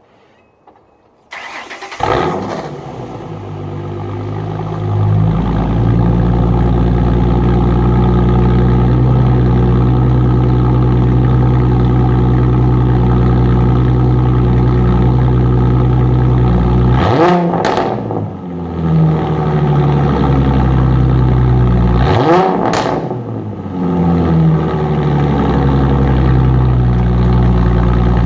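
2005 Ford Mustang's 4.0 L V6 through an off-road X-pipe and straight-piped cat-back exhaust. The starter cranks for a moment about a second in, then the engine catches and settles to a loud, steady idle. Later it is revved twice, about five seconds apart, each rev rising quickly and falling back to idle with a sharp pop near the top.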